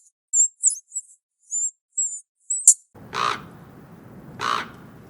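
Bird calls: a quick series of short, very high chirps, then two longer, lower calls about a second and a half apart, over a faint steady background hiss.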